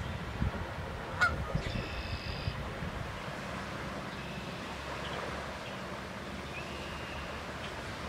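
Canada goose honking, with the clearest calls in the first two and a half seconds and fainter ones later.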